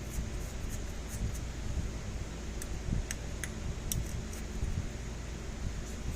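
Steady fan hum with about a dozen faint, light clicks scattered through the first few seconds, typical of small tools being handled on a circuit board.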